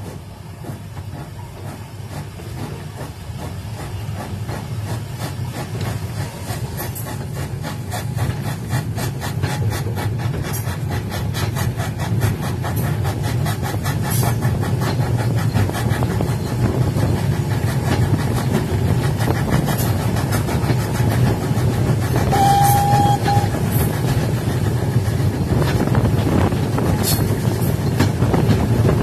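Steam-hauled ballast train with an ex-GWR 6400 class pannier tank, heard from the rear brake van as it gathers speed: a rumble of wheels on the track that grows steadily louder, with a rapid regular beat. A short whistle blast sounds about two-thirds of the way through.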